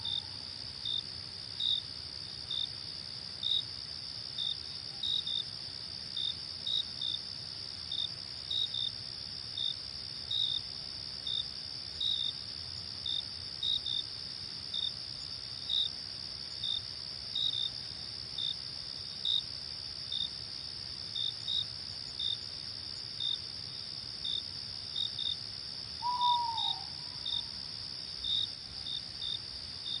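Crickets chirping at night: a steady high insect trill with separate short chirps, unevenly spaced, about one and a half a second. A single short falling call, much lower in pitch, comes in near the end.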